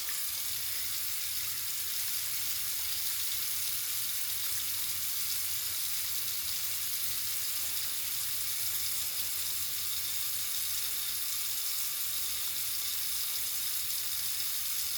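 Tap water running steadily into a sink, an even unbroken hiss.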